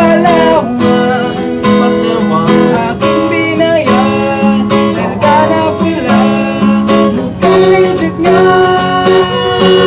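A man singing in Tagalog to a strummed acoustic guitar.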